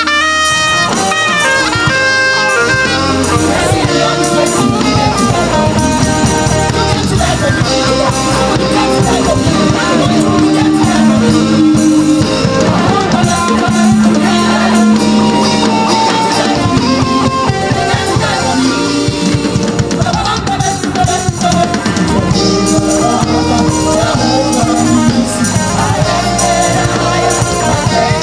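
Live band music: a soprano saxophone playing the lead melody, with some long held notes, over drum kit, electric guitar and bass.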